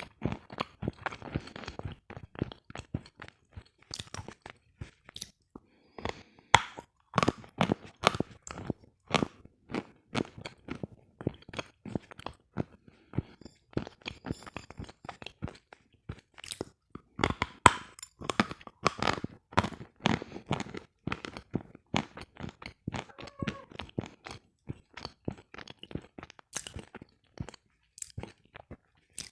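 A person chewing and crunching hard sawn lump sugar close to the microphone: a rapid, irregular run of sharp crunches.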